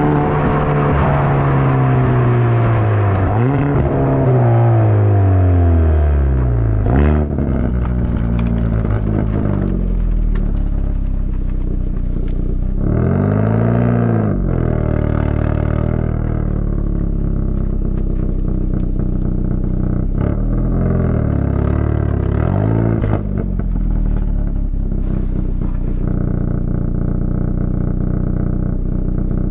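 Hyundai i30N's stock exhaust, heard right at the tailpipe. The turbocharged four-cylinder falls in revs as the car slows, with a sharp crack about seven seconds in, then settles to a steady idle. It is blipped briefly once around the middle and twice more a few seconds later.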